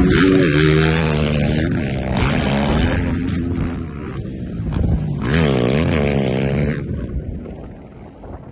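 A 450 cc rally motorcycle's engine revving hard and easing off again and again as it is ridden over sand dunes, with the strongest rise and fall about five to seven seconds in. The engine note then fades, leaving wind noise on the microphone.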